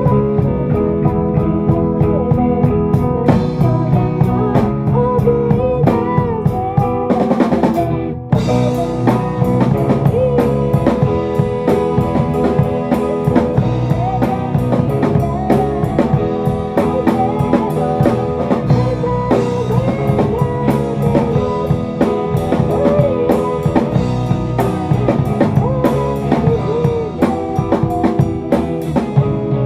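Rock band playing an instrumental passage with a full drum kit and guitars, the drums driving a steady beat. There is a short break about eight seconds in before the band comes back in.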